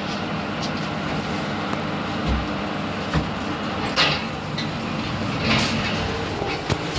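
Passenger lift running with a steady mechanical hum, broken by a low thump and a few short clunks and rattles.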